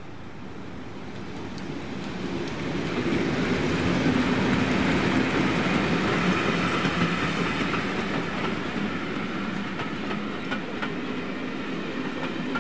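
A diesel-hauled train passes. The engine sound grows loud, peaks about four seconds in, then eases slowly, and wheels click over rail joints near the end.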